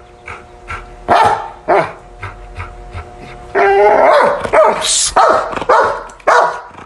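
Adult Labrador retriever barking excitedly: a few single barks, a steady whine through the first half, then a quick run of barks in the second half.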